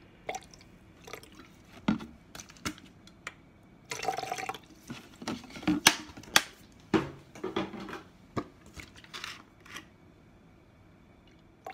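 Liquid poured from a bottle into a plastic measuring jug, splashing in short uneven spurts, mixed with sharp clicks and knocks of the bottle and cap being handled. It quietens after about ten seconds.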